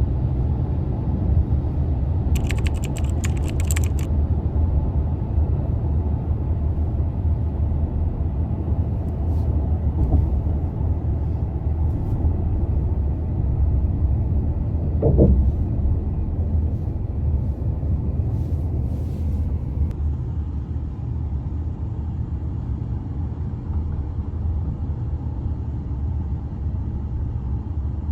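Steady low rumble of a car on the move, heard from inside, with a short burst of high clicking or rattling about two to four seconds in.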